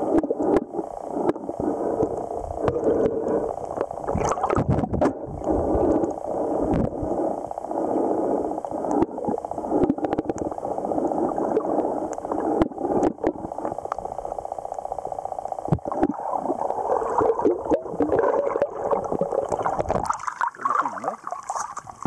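Stream water heard through a submerged camera: a muffled, gurgling rush with scattered sharp clicks and knocks. About twenty seconds in the low rumble drops away and the sound thins as the camera comes up out of the water.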